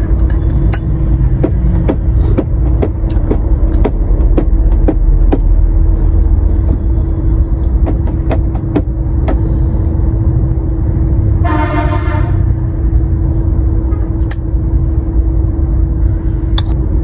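Metal spoon clicking again and again against a ceramic bowl while boiled balut eggs are scooped and eaten, over a loud steady low rumble and a constant hum. About halfway through, a short horn-like tone sounds for about a second.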